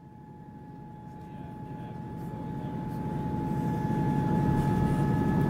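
Diesel train running, growing steadily louder, with a steady high whine over a low rumble.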